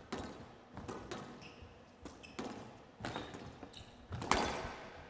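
Squash rally: the rubber ball is struck by the racket and hits the court walls in sharp cracks about once a second, each ringing on briefly in the hall. The loudest crack comes just after four seconds in.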